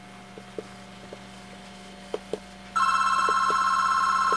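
Cordless telephone ringing: one warbling two-tone ring of about two seconds, starting a little before three seconds in. A few faint clicks come before it.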